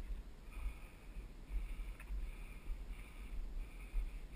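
Heavy, rhythmic breathing, about one breath every 0.7 seconds, from someone pushing a mountain bike up a steep dirt trail. A low rumble of wind and handling noise on the helmet-camera microphone runs under it.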